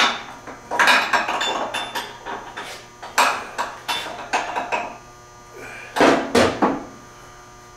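Metal tools and parts clanking and scraping in a series of separate knocks, the loudest cluster about six seconds in.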